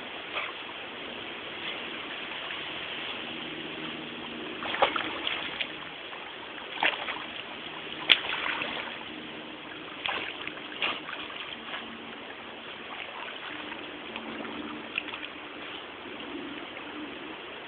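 Steady running water with a handful of short, sharp splashes from a swimming dog, the loudest about eight seconds in.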